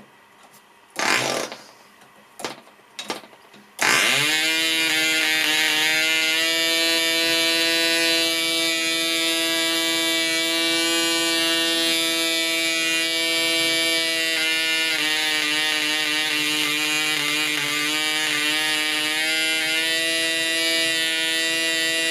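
PAW .55 model diesel engine with a propeller, flicked over by hand: it fires a few times, catches about four seconds in, and runs steadily at high revs. About eleven seconds later the revs dip and the running goes uneven for a few seconds as the compression screw is adjusted. This is the misfire that comes just past the optimum setting; the engine then runs smoothly again.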